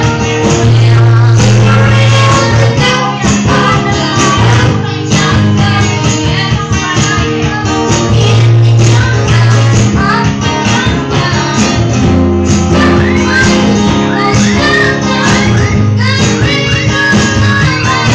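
Live amplified acoustic set: a man strumming an acoustic guitar, with a man and a boy singing into microphones.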